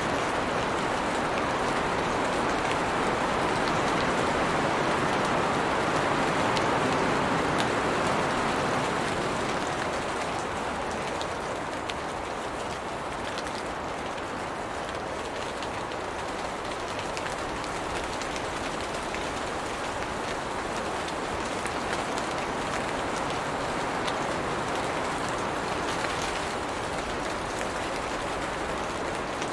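Steady rain falling on tree leaves, an even dense hiss with scattered individual drop hits. It eases slightly about a third of the way through.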